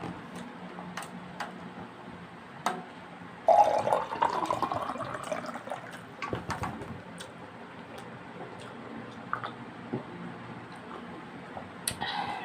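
A drink poured into a glass for about two seconds, starting a little over three seconds in, its pitch rising as the glass fills. Scattered soft clicks come before and after, and there is a short burst of noise near the end.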